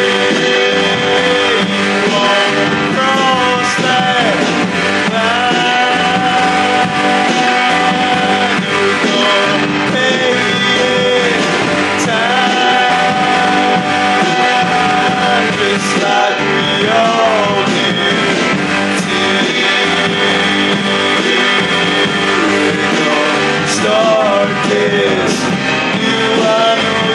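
Rock song with guitar, playing steadily throughout.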